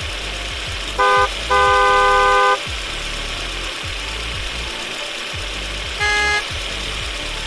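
Vehicle horn honking over a steady low engine rumble: a short toot about a second in, a longer toot of about a second right after, and one more short toot near the end.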